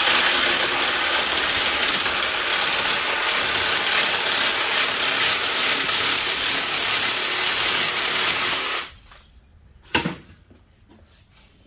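Handheld power tool cutting through a copper-aluminium radiator, a loud harsh grinding-rasping noise that starts abruptly and cuts off about nine seconds in. A single sharp knock follows about a second later.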